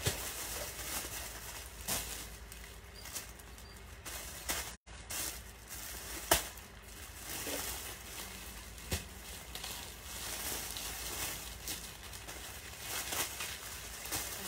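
Low room noise with scattered light clicks and taps from fingers working a smartphone on its stand; the sharpest click comes about six seconds in. The sound cuts out for a split second just before the middle.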